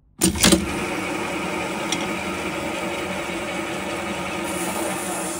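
A sharp click and a second click, then a steady mechanical running noise.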